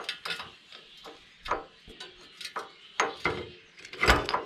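Irregular metal clicks and knocks as a bottle jack and steel fittings are handled and set into place in a homemade steel press frame, with a louder clatter about four seconds in.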